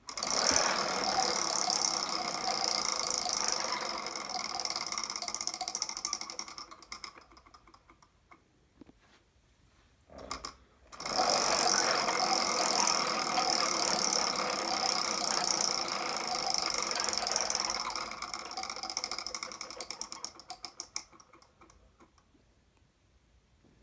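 Homemade Wheel of Fortune wheel spun by hand twice: the pointer's flapper rattles rapidly against the metal pegs around the rim. Each time the clicks slow into separate ticks as the wheel coasts to a stop.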